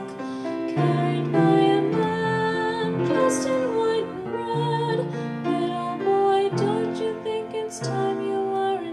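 A woman singing a slow, gentle song into a microphone, with upright piano accompaniment playing sustained chords beneath her held, wavering notes.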